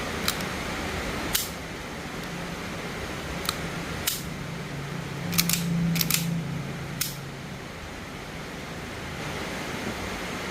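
Hi-Capa 5.1 airsoft pistol being handled, giving about nine sharp mechanical clicks and clacks at uneven intervals, several in quick pairs around the middle, over a steady hiss.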